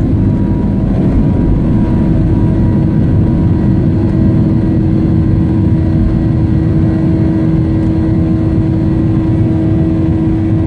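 Boeing 737 cabin noise in flight: a steady low rumble of jet engines and airflow with a constant hum over it.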